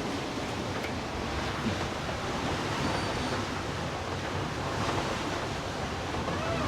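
Water rushing steadily along the hull of a monohull sailboat moving fast under full sail at about 8.5 knots, with wind blowing over it.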